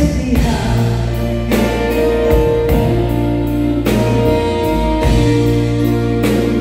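Live band playing a slow ballad: held chords over a bass line and a steady drum beat, with little or no lead vocal.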